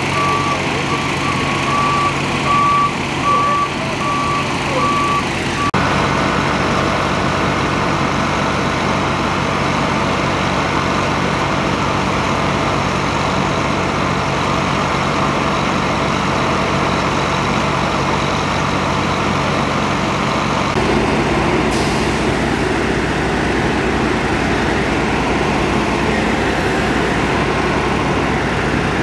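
A truck's reversing beeper sounding repeatedly, cut off sharply about six seconds in. After that, the steady running of large fire-truck engines, an even hum that shifts a little later on.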